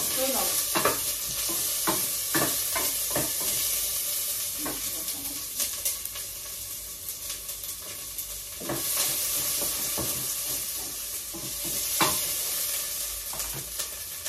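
Onion and garlic sizzling in hot oil in a stainless steel pot, stirred with a wooden spoon that clicks and knocks against the pot now and then. The sizzle grows louder about nine seconds in.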